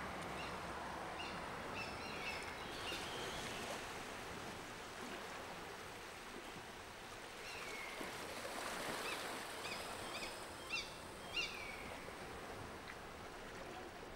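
Short chirping bird calls, several sliding downward in pitch, in one cluster soon after the start and another about two-thirds through; the loudest are two calls close together near the end. Under them runs a steady outdoor hiss.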